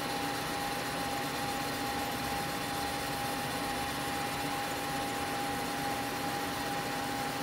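CNC lathe running steadily while a boring bar makes a light spring pass in an aluminium mold core: an even hiss with a steady hum.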